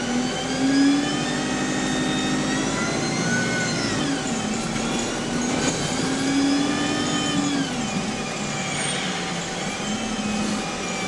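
Bus diesel engine and Voith automatic gearbox accelerating, the pitch climbing through each gear and dropping at upshifts about four and eight seconds in, with a high gearbox whine over the engine.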